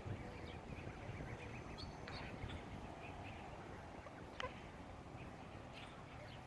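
Faint, scattered short calls from a flock of geese and goslings over a low outdoor rumble, with one sharp click about four seconds in.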